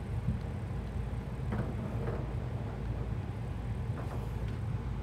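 A few faint taps and scratches of the FLY Fusion pentop computer's pen tip writing on notebook paper, about one and a half, two and four seconds in, over a steady low background hum.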